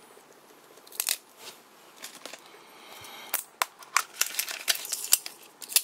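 A plastic gashapon capsule being pried open by hand: a string of sharp plastic clicks and snaps, a few at first and then many in quick succession in the second half.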